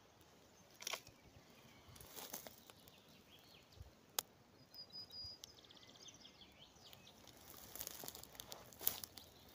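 Faint, scattered crackles and crunches of dry plant litter being disturbed, a few sharp ones standing out, over quiet outdoor background.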